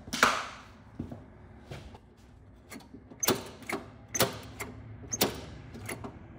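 A choke cable being pulled out and pushed back in several times, with sharp metallic clicks from the cable knob and the carburetor's choke lever, on a freshly installed choke linkage being tested. The clicks come in pairs about once a second after the first few, and the loudest is near the start.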